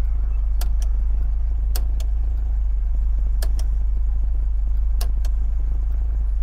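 MGB's 1.8-litre four-cylinder engine idling steadily, with sharp clicks, mostly in pairs, every second and a half or so as the indicator switch is cycled back and forth. The switch has just been sprayed with contact cleaner to cure a faulty, unreliable contact.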